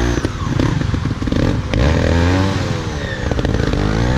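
Motorcycle engine revving up and down under the rider's throttle, its pitch rising and falling several times, with the rapid firing pulses running throughout.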